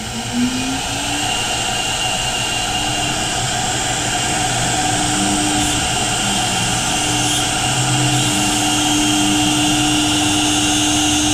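CNC router spindle motor spinning up, its whine rising in pitch over the first second, then running at a steady high whine.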